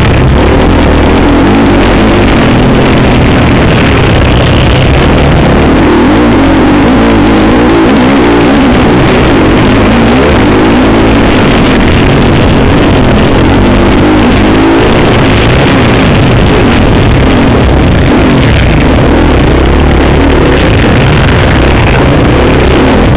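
Motocross bike engine heard from on board during a race, loud and unbroken, its pitch rising and falling as the rider opens and rolls off the throttle through turns and straights.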